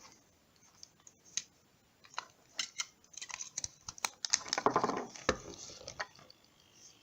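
Scattered light clicks and rustling from small parts being handled, with a denser stretch of scraping and rattling about four and a half seconds in.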